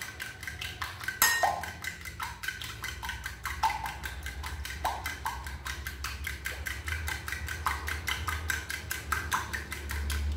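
A fork beating eggs and melted margarine in a bowl: a quick, even run of clicking taps as the fork strikes the bowl, with some taps sharper than others.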